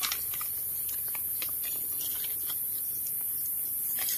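Light scattered crackles and rustles of dry forest leaf litter and twigs, as someone steps and handles the ground cover while foraging for mushrooms, over a steady high-pitched hiss.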